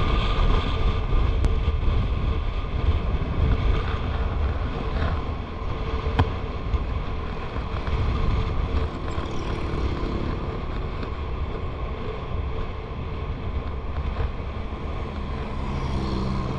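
Wind buffeting the microphone of a motorcycle riding at road speed, a steady low roar with the motorcycle's engine running steadily underneath.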